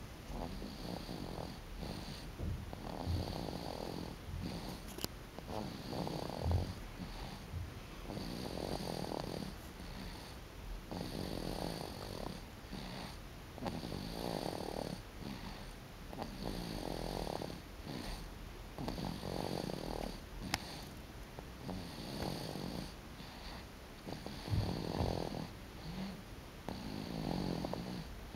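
Snoring: slow, regular breaths with a rough, rattling snore on each one, repeating about every two to three seconds.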